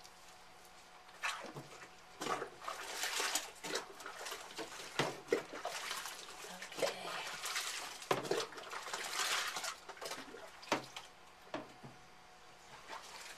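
Water splashing and pouring in a utility sink as a Westie puppy is rinsed: a plastic cup pours water over its back and hands rub through its wet coat, in irregular splashes that die down near the end.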